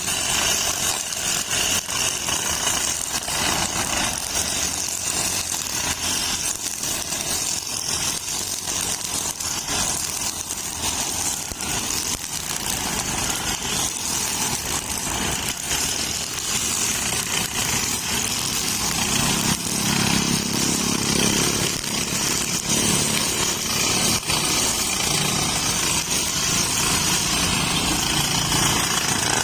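Petrol brush cutter fitted with a nylon string head, its small engine running at working speed while the line cuts grass, with many quick ticks and taps from the line striking stems and debris. It gets a little louder past the middle.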